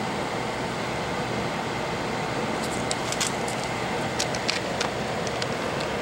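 Steady rushing hiss of air, like a fan or blower running, with a few light clicks and taps of handling from about halfway through.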